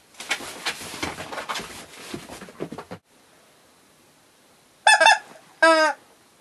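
A cat scrabbling and rustling on a quilted rug as it pounces on a stuffed toy, cut off abruptly. Near the end the squeezed sound toy honks twice, loud and short, the second call falling in pitch.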